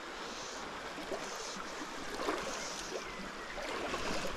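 River water flowing over a shallow, stony bed: a steady rushing of current.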